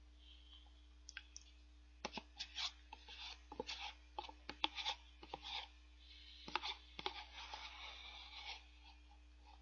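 Spoon scraping and digging frozen shaved ice out of a paper dessert cup: a quick run of scrapes, crunches and clicks from about two seconds in until shortly before the end, after a few isolated clicks.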